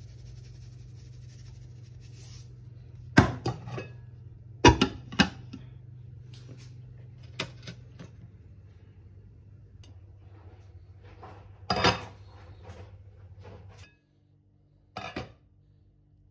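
Glass lid and crock of a Crock-Pot slow cooker clinking and knocking, a handful of separate sharp strikes over a steady low hum that drops out near the end.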